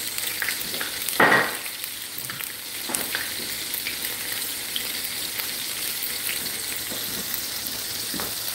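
Battered onion rings deep-frying in grease that is running too hot in a cast-iron skillet: a steady sizzle with small crackling pops. A single louder clunk comes about a second in.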